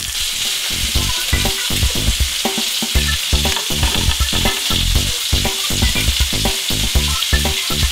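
Beef patties and bacon frying in a ridged grill pan: a steady sizzling hiss with many irregular crackling pops of spattering fat.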